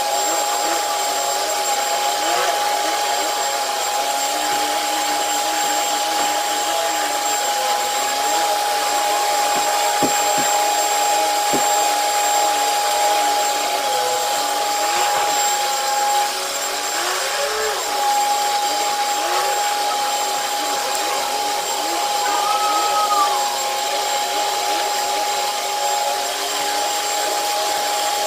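Commercial HEPA vacuum cleaner running steadily on carpet, with a constant high whine over the rush of suction.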